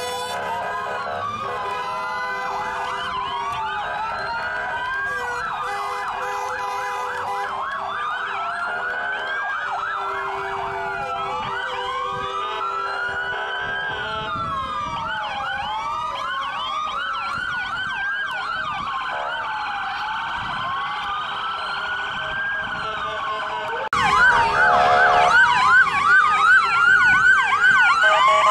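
Several emergency-vehicle sirens sounding at once, their wails slowly rising and falling and overlapping, with faster yelping sweeps mixed in. Louder from about 24 seconds in.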